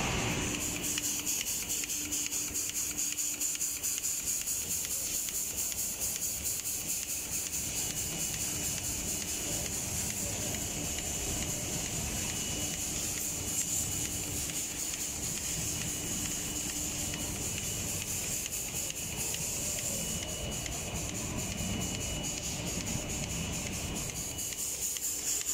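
Automatic cabinet-door spray painting machine running: a steady hiss over a fast, even ticking and a low hum.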